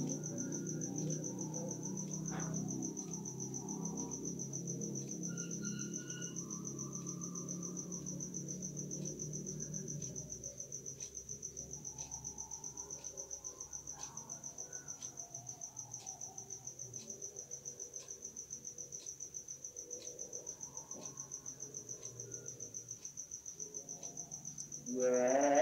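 Crickets chirping at night, a steady high trill throughout, with a low murmur under it for the first ten seconds. Near the end, a man's chanting begins.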